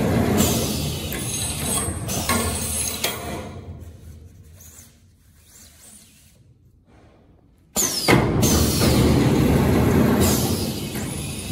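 Paper-tube core cutting machine running, its row of circular blades cutting through a spinning cardboard tube with a loud, rough noise. The noise dies away around the middle, then starts again abruptly about eight seconds in as the next tube is cut.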